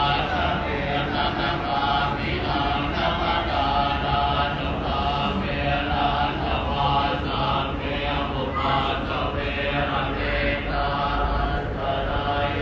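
Thai Buddhist monks chanting together in a steady, unbroken drone, the chant used to consecrate amulets.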